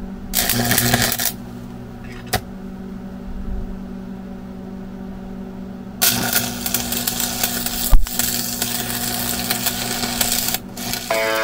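Stick welder arc. A short crackling burst as the rod strikes about half a second in and a single click near two seconds, then a steady crackle and sizzle of the arc burning for about four and a half seconds from around six seconds in, with one loud pop near eight seconds. A steady engine hum runs underneath, and guitar music starts at the very end.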